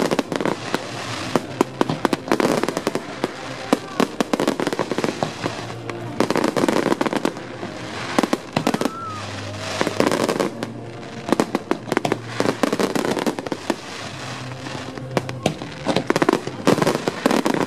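Fireworks display going off: a dense run of sharp bangs from bursting shells, several a second, mixed with crackling.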